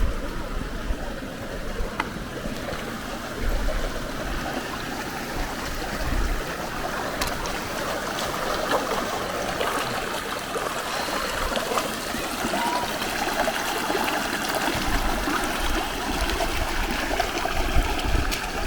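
Steady rush of a mountain stream, running water with no break or change, with a few brief low rumbles underneath.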